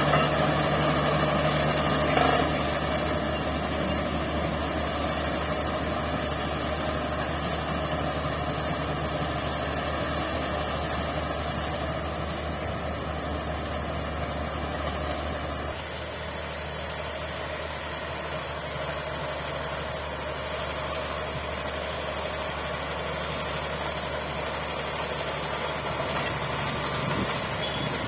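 Shantui bulldozer's diesel engine running steadily with a low, even hum. It drops slightly in level about two seconds in and again a little past halfway.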